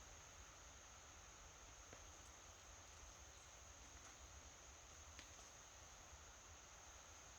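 Near silence: a faint steady hiss with a thin, high, steady tone and an occasional faint tick.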